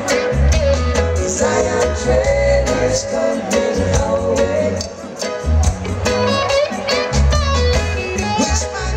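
Live reggae band playing, with a male lead vocal and female backing vocals over a prominent bass line.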